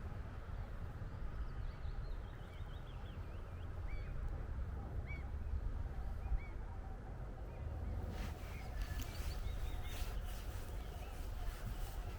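A bird calls repeatedly with short rising chirps over a steady low wind rumble on the microphone. Scratchy rustling noises follow in the last few seconds.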